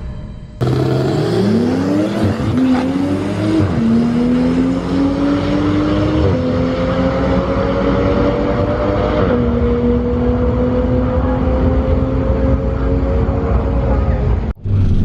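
Turbocharged Ford Mustang Bullitt's 4.6-litre two-valve V8 at wide-open throttle on a drag-strip pass. The pitch climbs in each gear and drops at each of about four upshifts, then holds and rises slowly in top gear.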